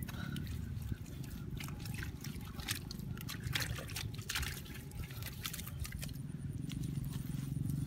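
Bare hands scooping and squeezing wet mud and muddy water in a waterlogged hole: irregular squelches, small splashes and drips, over a steady low rumble.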